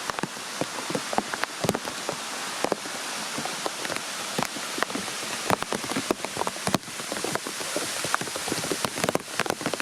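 Small waterfall's water splashing and spattering: a steady hiss of falling water with many sharp drips and splashes scattered through it.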